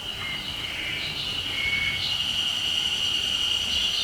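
Japanese spring cicada (haruzemi, Terpnosia vacua) singing a steady, continuous high buzz that grows louder about halfway through.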